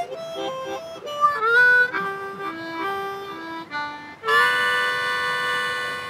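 Diatonic harmonica playing a slow blues riff: a run of short single draw and blow notes with a slide up in pitch, stepping downward. It ends on a long held two-note draw chord, a 3-and-4-draw double stop, that scoops up at its start.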